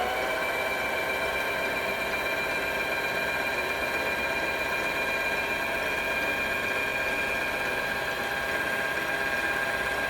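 Digital sewing machine's motor running steadily at high speed to wind the bobbin, a constant mechanical whine. It spins up at the very start, rising briefly in pitch, then holds level.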